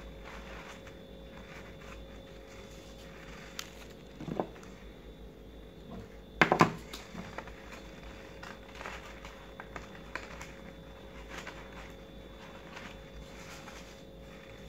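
Stiff paper petals rustling and crinkling faintly as hands handle and press them into place, with two brief louder knocks, the louder about six and a half seconds in.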